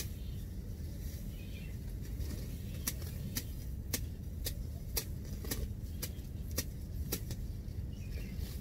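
Tall grass and weeds being pulled and cut by hand, with sharp snapping clicks of stems about twice a second from about three seconds in, over a steady low rumble.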